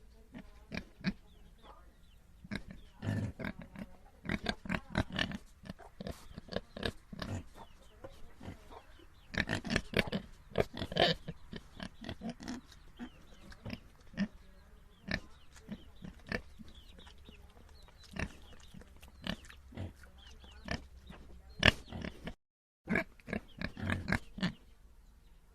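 Pigs grunting, many short grunts coming irregularly in clusters, with a sharp louder one a few seconds before the end.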